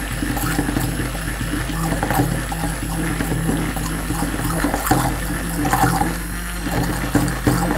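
Electric hand blender running steadily in a steel bowl, its motor humming as it churns boiled raw mango pieces and water into a purée, with liquid sloshing and splashing against the bowl.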